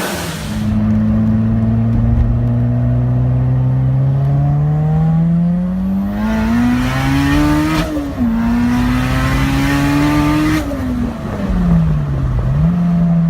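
Turbocharged Honda S2000's four-cylinder engine pulling hard, its pitch climbing steadily for about eight seconds. It dips suddenly as with a gear change, climbs again, then falls away as the throttle is closed and settles to a steady lower note near the end.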